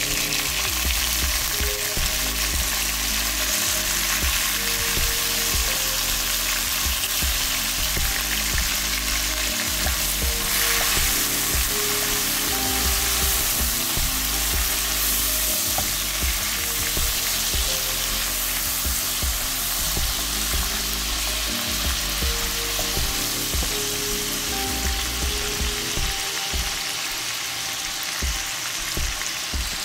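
Sliced tomatoes and green chillies frying in hot oil with fried onions, a steady sizzling hiss as the wet vegetables cook.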